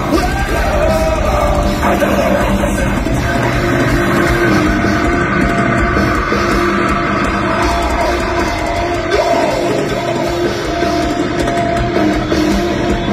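Heavy metal band playing live, heard from the audience: drums, guitars and a singer at a steady, high level.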